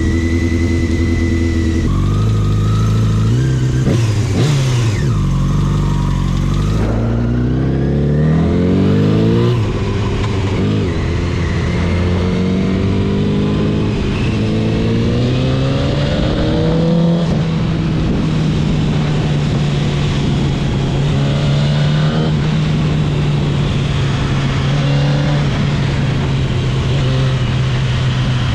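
Motorcycle engine idling, then pulling away with the revs rising in several steps through upshifts, then holding a steady, even note as the bike rides on.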